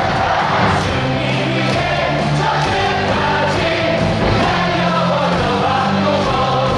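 A Korean baseball crowd singing a batter's cheer song in unison along with the amplified stadium music, over a steady beat.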